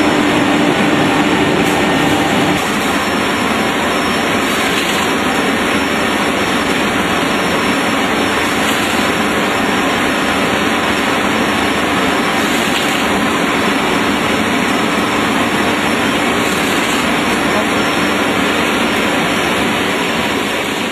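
Adult diaper production line running at speed: a loud, steady, dense machine noise. A low hum near the start fades out about two and a half seconds in.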